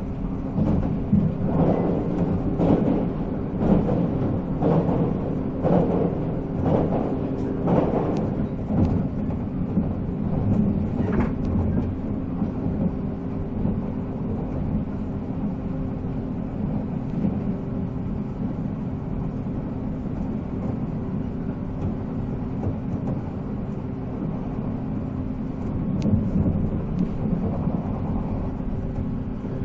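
JNR 485 series electric train running at speed, heard from on board: the steady whine of its MT54 traction motors over a rumble from the running gear. Wheels clack over rail joints roughly once a second in the first ten seconds or so, then the ride goes smoother.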